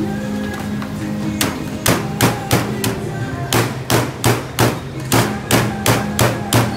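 Cleaver chopping bundles of morning glory (water spinach) stems on a thick wooden chopping block: sharp knocks starting about a second and a half in, a little uneven at first, then settling to about three a second.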